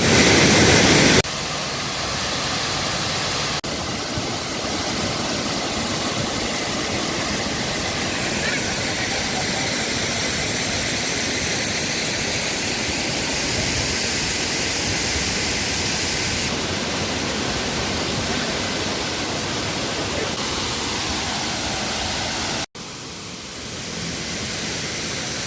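Waterfall's rushing water, a steady roar of noise. Its level changes abruptly about a second in, and it drops quieter near the end.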